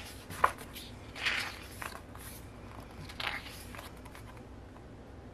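Pages of an album photobook being turned by hand. A sharp tap comes about half a second in, then two soft paper swishes about two seconds apart.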